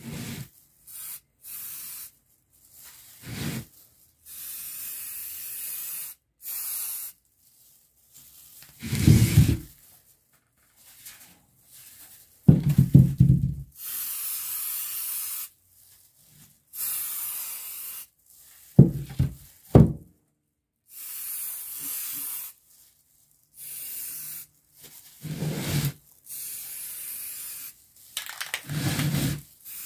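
Aerosol spray-paint can hissing in repeated short bursts of a second or two as blue paint is sprayed onto a motor end cover. A few louder knocks come in between, the loudest about halfway through.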